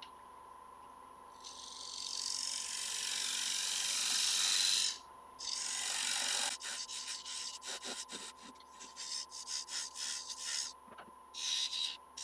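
A gouge cutting into a spinning sycamore bowl blank on a wood lathe, hollowing a recess in its face. A hissing shaving cut builds over about three seconds and breaks off, then comes back as many short passes with brief gaps, with one more short pass near the end.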